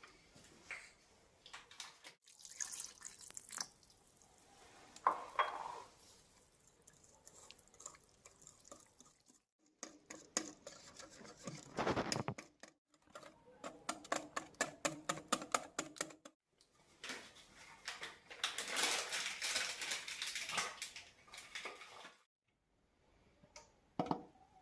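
Kitchen utensils clinking and scraping against bowls and dishes during cake batter preparation, with a run of quick, even strokes at about five a second partway through.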